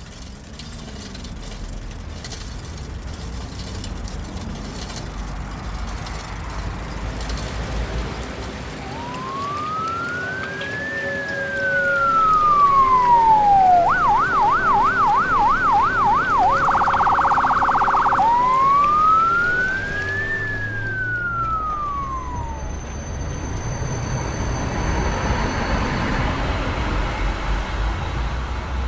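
An emergency-vehicle siren passing through city traffic. It starts with a slow rising and falling wail, switches to a fast yelp and then a very rapid warble, and ends with another slow wail. It is loudest in the middle and fades out, over a steady bed of traffic noise.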